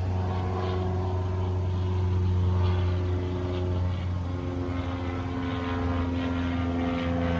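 A steady low engine-like drone, with a few held tones above it that shift in pitch about halfway through and again near the end.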